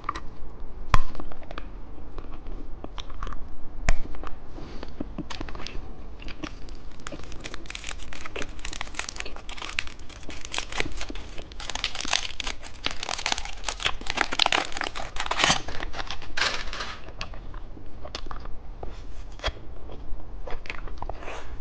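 Plastic candy wrapper crinkling and tearing as it is opened by hand, densest in the middle stretch. There are two sharp knocks in the first few seconds.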